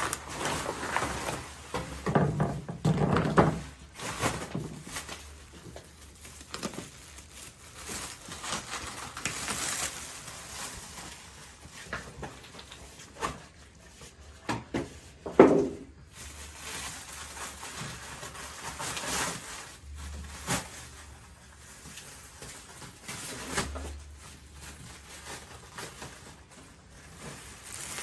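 Plastic film and bubble wrap crinkling and rustling as they are pulled off a hard-shell rooftop tent, with scattered knocks from handling; the loudest is a sudden sharp sound about fifteen seconds in.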